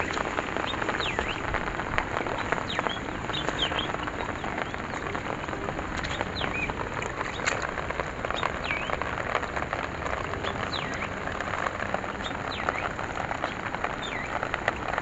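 Steady monsoon rain pattering on shallow water and a fishing net, with small birds chirping now and then.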